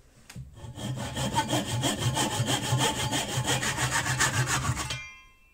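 Hand saw cutting through a small plywood strip clamped in a vise: rapid, steady back-and-forth strokes starting about half a second in and stopping near the end, with the steel blade ringing briefly as the sawing stops.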